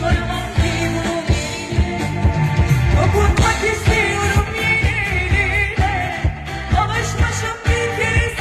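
Live pop band playing a song with drums, bass, electric guitars and keyboard, with a woman singing into a microphone over it, all amplified through the stage PA.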